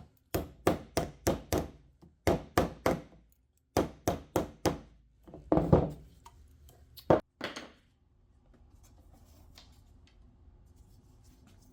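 Repeated sharp knocks in quick runs of four or five, about three a second, with short pauses between runs, stopping about eight seconds in.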